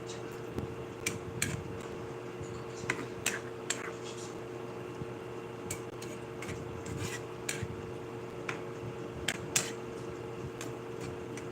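Metal utensils clinking and scraping against cookware while food is cooked: a dozen or so irregular sharp clinks over a steady low hum.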